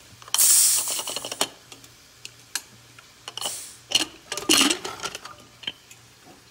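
An aluminium inner-lid pressure cooker being opened after cooling: the metal lid clicks and scrapes against the pot's rim in two short bursts of rapid clicking, the first with a brief hissing rush, the second about four seconds in as the lid comes free.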